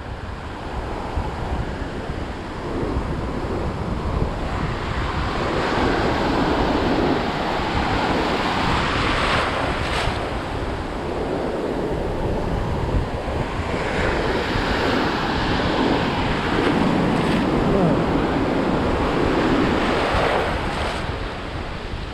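Atlantic Ocean surf washing and breaking around the microphone, swelling and easing as waves come in every few seconds, with wind buffeting the mic.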